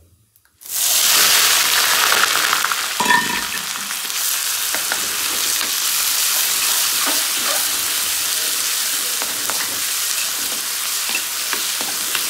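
Onions dropped into hot oil in a pan, starting about a second in with a sudden loud, steady sizzle that carries on, with a utensil clicking against the pan now and then as they are stirred.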